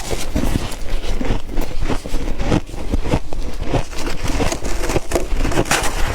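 Close-up crunching and chewing of freezer frost: a dense, irregular run of crisp crackles and crunches as the ice is bitten and ground between the teeth.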